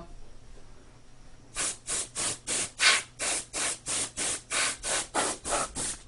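Can of compressed air blowing dust out of an open computer case in a rapid series of short hissing puffs, about four a second, starting about a second and a half in.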